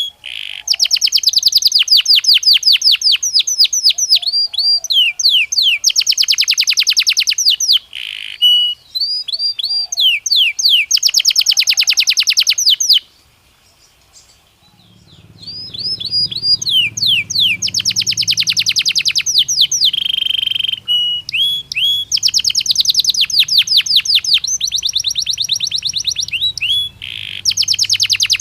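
Belgian canary singing: long phrases of rapid trills and quickly repeated sweeping whistles, high-pitched, with a pause of about two seconds about halfway through. A low hum sits under the song after the pause.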